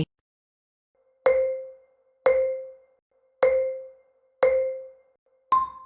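Countdown sound effect: four short, marimba-like tones about a second apart at one pitch, then a fifth tone an octave higher that rings on briefly, marking the end of the count.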